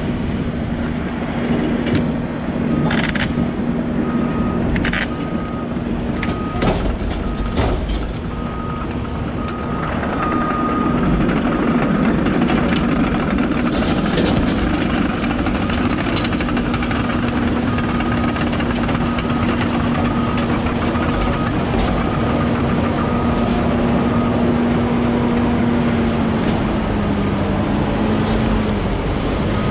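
Heavy diesel machinery running steadily with a backup alarm beeping about once a second through most of the stretch. Several sharp knocks in the first eight seconds as jet ski hulls are dragged off the wooden trailer deck.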